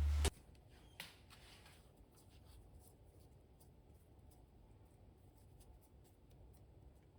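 Background music cuts off abruptly, followed by faint scattered clicks and rustles of something being handled, with one sharper click about a second in.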